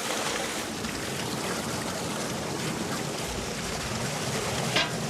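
Water running steadily in a levada irrigation channel as a continuous rushing hiss. There is a brief click near the end.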